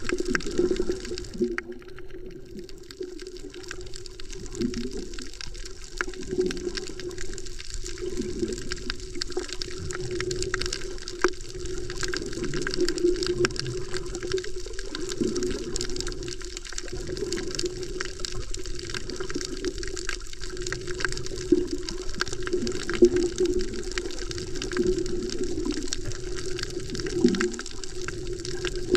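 Underwater water noise picked up by a submerged action camera: a muffled, steady rush of water that surges and sloshes every second or two, with a scatter of faint clicks.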